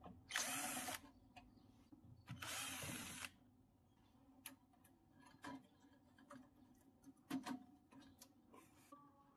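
Power drill-driver running in two short bursts, backing out screws to take off the chest freezer's rear panel, followed by scattered light clicks and knocks of parts being handled.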